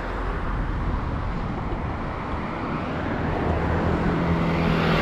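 A car driving past close by on a paved road, then a motor scooter approaching: about three and a half seconds in, its steady engine note comes in and grows louder toward the end.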